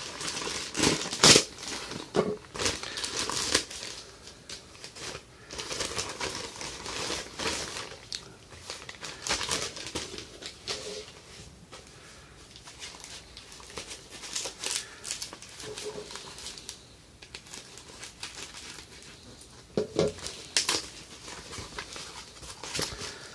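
Plastic packaging handled by hand: a plastic mailer bag slit open with a folding knife, then foam wrapping and a zip-lock bag pulled out, giving irregular crinkling and rustling with a sharp, loud rip about a second in.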